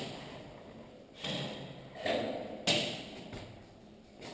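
A few footsteps scuffing on a gritty concrete floor, the last a sharper knock.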